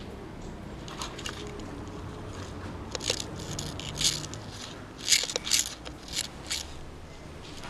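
Footsteps crunching and scraping over debris on a floor in short, irregular steps.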